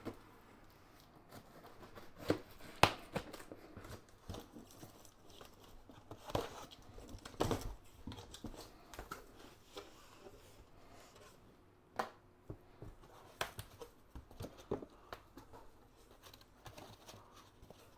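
Packaging of a PC case being opened and handled: rustling and crinkling with scattered sharp taps and knocks, a few louder ones standing out.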